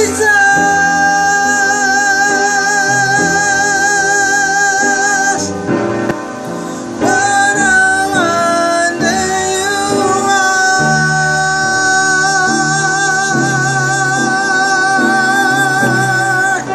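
Singing of a slow worship song over instrumental backing, with two long held notes that waver in pitch, the second beginning a little after halfway.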